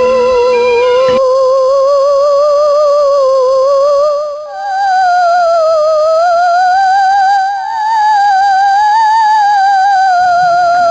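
Eerie ghost wail sound effect: a single high, wavering tone with a fast, even vibrato that slides slowly up and down, jumping to a higher pitch about halfway through.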